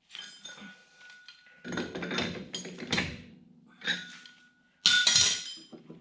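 Steel-on-steel clinking and scraping as a keyed washer is worked over the axle nut of a truck's rear wheel hub to line it up. The clatter comes in four bunches, and two of them carry a short metallic ring.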